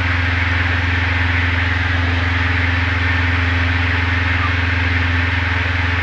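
Diamond DA20's four-cylinder piston engine and propeller running steadily in flight, a constant low drone heard inside the small cockpit.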